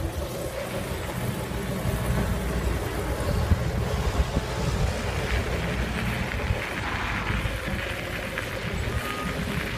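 Steady low rumble of wind buffeting the microphone, with rolling noise from the camera moving quickly along a gravel path.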